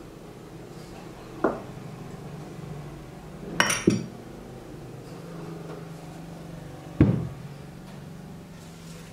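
Glass bottle and kitchen items set down on a table: a knock, then a quick double clink of glass, and a heavier knock near the end.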